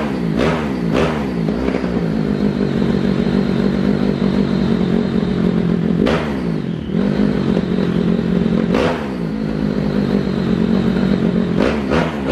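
Modified two-valve drag motorcycle engine revved by hand on the throttle. It starts with quick blips about twice a second, then is held at high revs. It drops back briefly about seven seconds in and again about nine seconds in, and returns to quick blips near the end.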